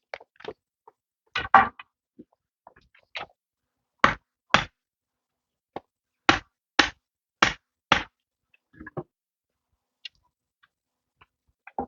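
Sharp knocks of a tool striking bamboo, mostly in quick pairs about half a second apart, repeated several times.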